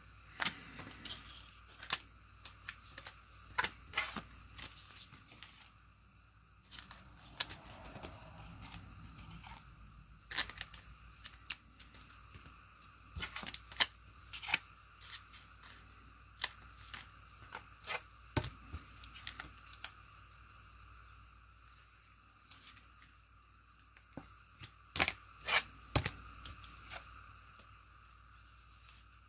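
Trading cards and packs being handled at close range: scattered, irregular clicks and taps of cards and plastic holders, with some tearing of pack wrappers.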